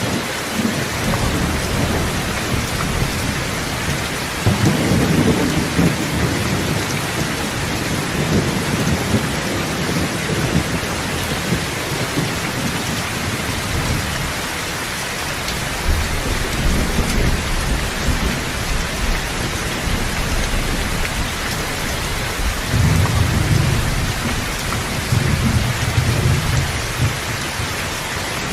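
Steady heavy rain, with low rolling rumbles of thunder swelling up three times.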